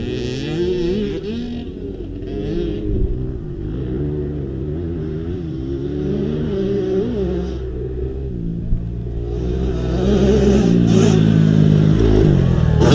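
Dirt bike engines on a motocross track, several at once, revving up and down as the riders go through the gears and jumps, growing a little louder near the end.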